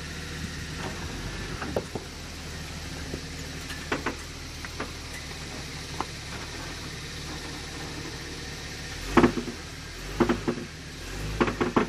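Jeep Wrangler TJ's engine running low and steady as it crawls up a rock step, with sharp knocks and clunks as it works over the rock, the loudest about nine seconds in and more in quick clusters near the end.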